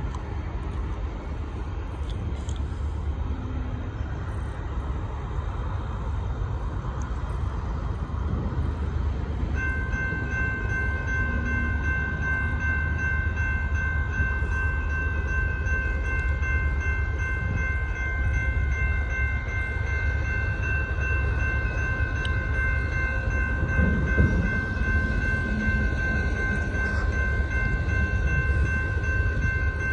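Approaching train: a low rumble that grows slowly louder. About ten seconds in, the locomotive's multi-chime air horn starts and is held as one steady chord.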